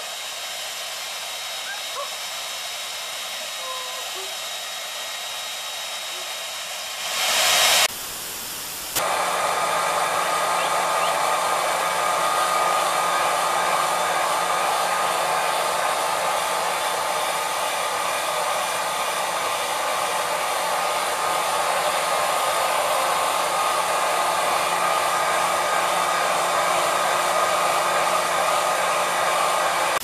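Electric hair dryers blowing steadily: first a quieter rush of air, then after a short louder surge about seven seconds in, a louder dryer whose steady high motor whine sits over the rush of air.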